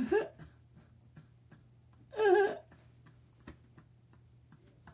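A man laughing: a short burst at the start and a louder, high-pitched one about two seconds in, with faint scattered clicks in the quiet between.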